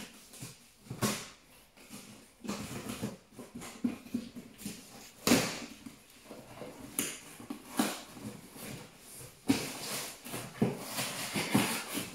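Packing tape on a cardboard box being slit with a small knife and ripped off, with the cardboard flaps rustling and knocking in short, irregular bursts.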